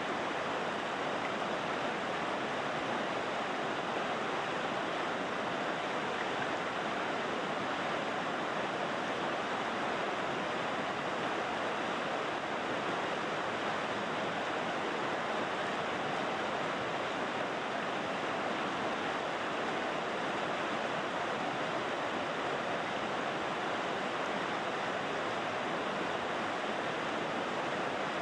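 A river rushing over rocks: a steady, even water noise with no changes, much like white noise.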